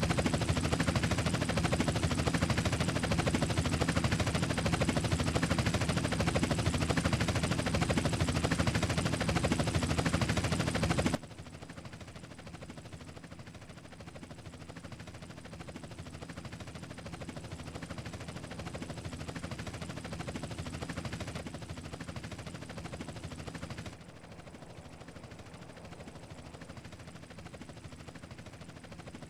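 Helicopter running with a rapid rotor chop. It is loud for about the first eleven seconds, then cuts abruptly to a much quieter level, swells a little and drops once more near the end.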